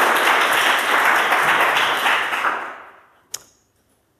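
Audience applauding, dying away about three seconds in, followed by a single sharp click.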